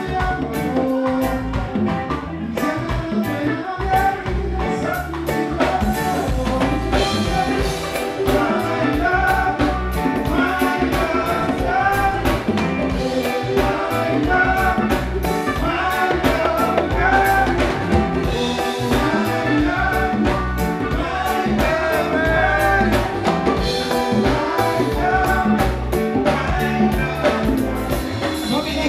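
Live band music with a singer over a steady drum beat, hand drums among the percussion.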